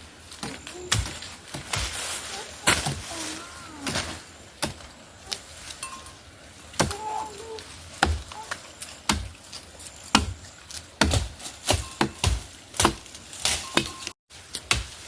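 Repeated sharp strikes, about one or two a second, coming faster in the second half, with faint voices between them.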